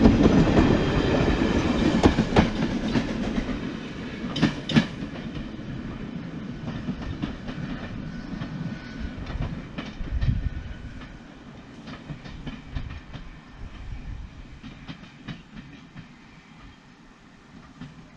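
Train running on rails, wheels clicking over the rail joints, loud at first and fading away steadily as it moves off.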